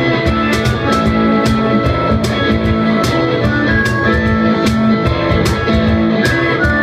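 A band playing live: guitar-led music over a low bass line with a steady beat of sharp cymbal-like strikes.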